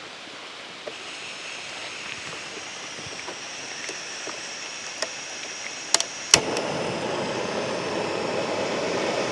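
Jetboil gas stove burning with a steady hiss as its water heats, growing slowly louder. After a couple of sharp clicks about six seconds in, a louder rushing builds as the water comes to the boil.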